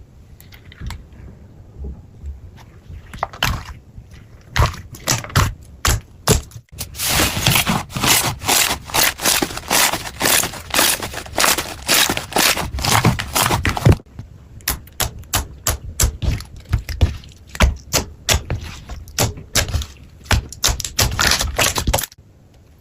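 Slime being squeezed and pressed by hand: sticky crackling and popping clicks. Scattered at first, then a dense crackling run in the middle, then quick separate pops until just before the end.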